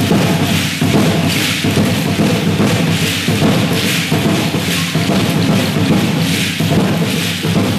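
Aztec dance drum beating a steady rhythm, with the shaking rattle of the dancers' ankle rattles and thuds of their stamping steps.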